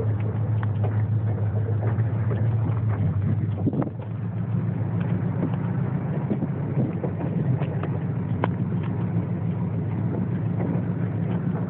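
Jeep engine running steadily while driving over a rough dirt trail, with scattered knocks and rattles over the bumps. About four seconds in the engine note dips briefly, then carries on a little higher.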